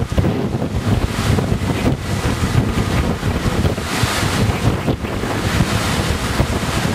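Wind buffeting the microphone in gusts on the deck of a sailing catamaran under way, over the wash of water past the hulls.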